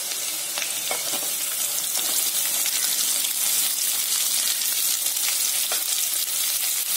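Hot oil sizzling steadily in a kadai as garlic and sliced green chillies fry, with a few faint crackles. Sliced onions go into the oil partway through, and the frying carries on.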